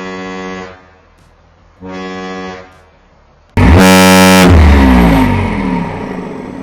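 Kahlenberg S-120 ship horn sounding: two short blasts under a second each, then a third, loud blast about two seconds later whose pitch sags as it winds down over about two seconds.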